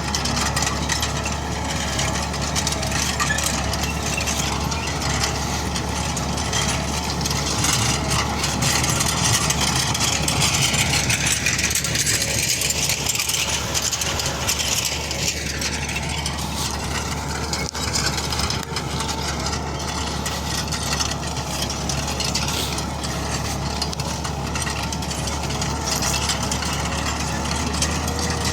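New Holland TD4.100F tractor engine running steadily under load while pulling a cultivator through orchard soil.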